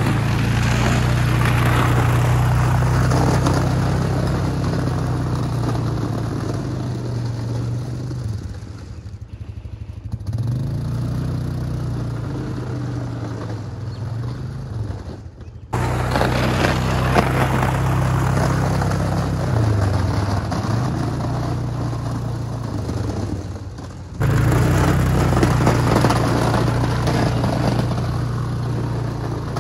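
1997 Polaris Sportsman 500 ATV engine running under load while plowing snow, its pitch rising and falling, with the plow blade scraping through the snow. The engine note drops briefly about a third of the way in, and the sound cuts abruptly to a new level twice.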